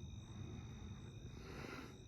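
Quiet background noise: a faint low rumble and hiss with a thin, steady high-pitched whine, and a soft brief rustle near the end.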